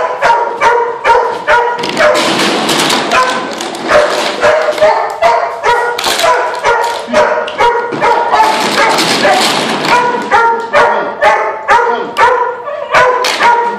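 A dog barking over and over, about two to three short barks a second, with two stretches of plastic bottles clattering across the floor.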